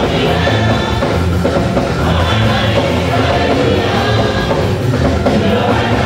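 Choir singing gospel music with a band, loud and steady.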